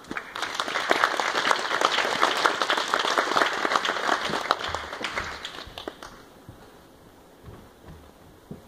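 Audience applauding, with a few individual claps close by. The clapping starts at once, holds, and dies away about six seconds in.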